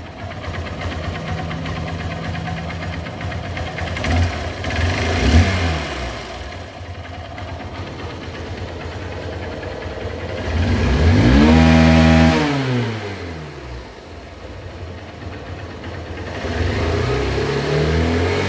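Hero Honda motorcycle's single-cylinder four-stroke engine idling and revved by hand: a short blip about four seconds in, a longer rev that rises and falls about halfway through, and another rise near the end. It runs smoothly now that the carburettor has been cleaned and the spark plug replaced.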